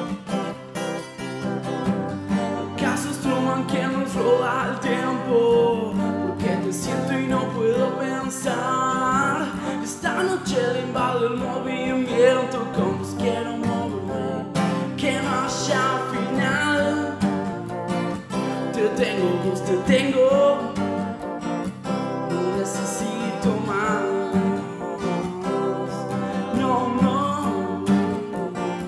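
Acoustic guitar strummed over sustained electric keyboard chords, with a melody line wavering above them, in an instrumental passage of an indie-pop song.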